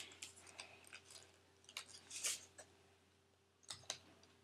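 Scattered short plastic clicks and rustles of a UHC mini Uzi airsoft gun being handled, the sharpest clicks about two seconds in and again near the end.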